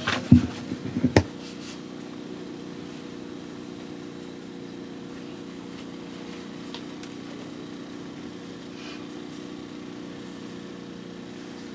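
Steady low mechanical hum with a few fixed low tones, after a couple of sharp knocks in the first second or so.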